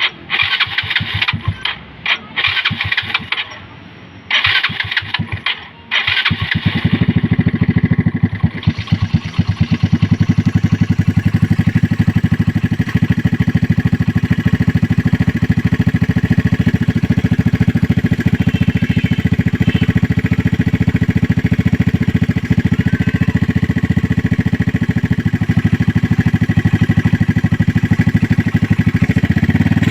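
Yamaha Mio scooter's single-cylinder engine (59 bore, stock head) cranked in several short bursts. About six seconds in it starts and runs steadily through an Apido V4 chicken pipe exhaust.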